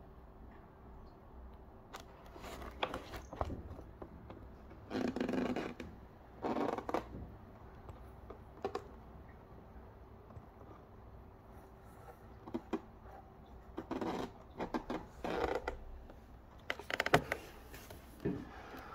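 Irregular bursts of scraping and rustling on cardboard, several short ones with a few sharp clicks, as a kitten paws at and moves about inside a cardboard play house.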